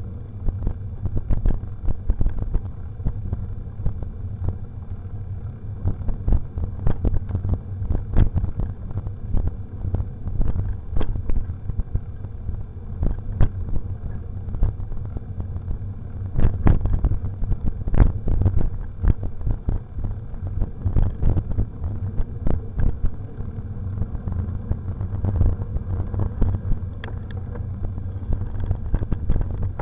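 Mountain bike ridden over a bumpy forest dirt trail: a steady low rumble of wind and tyres, with frequent knocks and rattles as the bike jolts over bumps.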